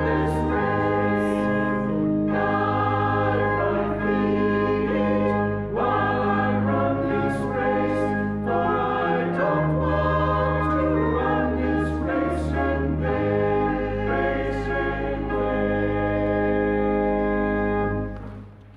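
Church choir singing with organ accompaniment, sustained chords over held bass notes; the music ends with a final chord released shortly before the end.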